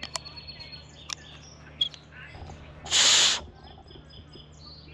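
Aluminium carabiner gate clicking open and shut a few times as it is worked in rinse water to flush dirt out of the spring mechanism, with a short, loud rushing noise about three seconds in. Birds chirp faintly in the background.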